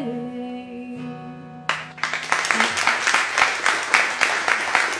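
The last acoustic guitar chord of a song rings out and fades, then audience applause breaks out just under two seconds in and carries on.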